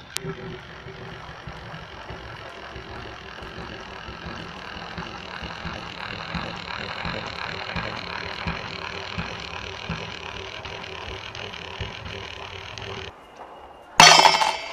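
A steady mechanical whirring with a low hum runs for about thirteen seconds and then stops. About a second later something drops into a stainless steel mug with a loud, brief metallic clatter.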